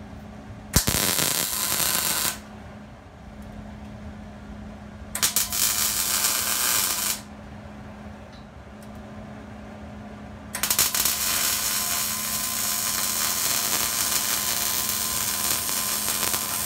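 Electric arc welding on a steel-tube roll cage: three runs of crackling, sputtering arc, two short ones of about a second and a half each and a longer one of about six seconds starting about ten seconds in, with a steady low hum underneath.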